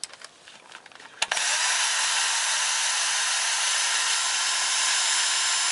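A few light clicks, then about a second in an electric drill-driver starts and runs steadily, spinning a cylinder head bolt down its threaded well. The bolt is being run to the bottom to check that it seats fully now the oil has been cleared from the bolt hole.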